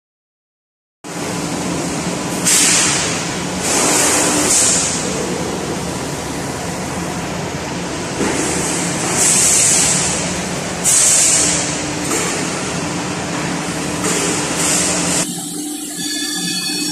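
VMC850 vertical CNC machining center drilling holes in steel plate under flood coolant: a steady machine hum under a rush of coolant spray, with loud hissing surges every few seconds. It starts about a second in; near the end the hiss drops away and thin, high whining tones come in.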